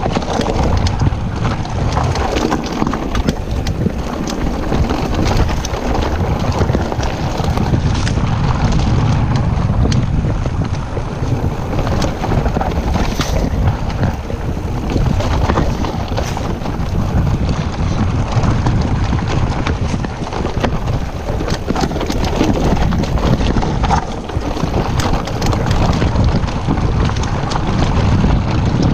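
Wind buffeting the action camera's microphone while a Trek Powerfly FS 9 electric mountain bike rolls fast down a rocky dirt trail, its tyres crunching over loose stones and the bike rattling with many small knocks.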